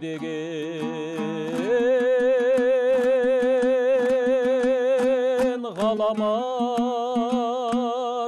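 Kazakh terme singing: a voice holds long, wavering notes over steady strumming on a plucked string instrument. The voice glides up into a long held note about two seconds in, drops briefly near six seconds and rises again.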